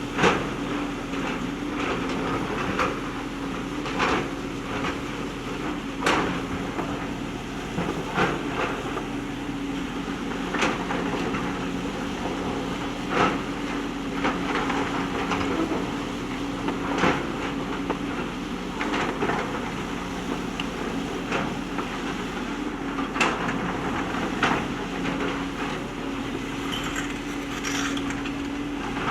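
JCB backhoe loader's diesel engine running steadily, with sharp knocks about every two seconds as the bucket works the riverbed stones.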